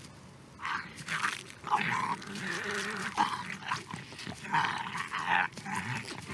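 Walkers (zombies) growling and snarling, a string of short rasping snarls with pauses between.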